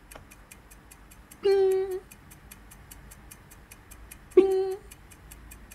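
A person imitating a triangle with the voice: two short, high sung 'bing' notes about three seconds apart, over a steady fast ticking of about four to five clicks a second.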